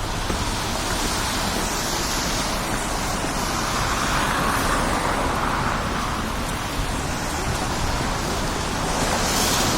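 Steady outdoor noise of wind and street traffic, with a low rumble from the wind on the microphone, swelling a little around the middle.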